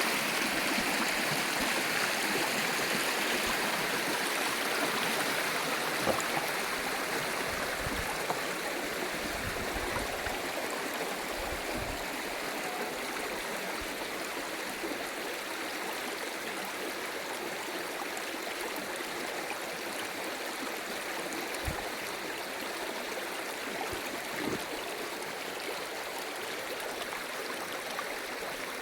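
Stream water flowing over rocks, a steady rushing with no pauses, with a few faint low knocks here and there.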